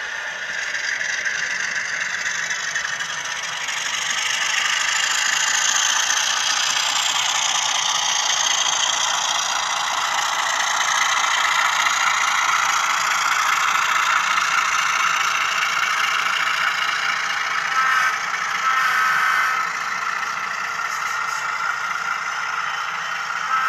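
Model Alco RS-3 diesel locomotive running, its LokSound 5 sound decoder playing diesel engine sound through a small speaker, thin with little bass, together with the clatter of the model's wheels on track. A short two-part tone comes about eighteen seconds in.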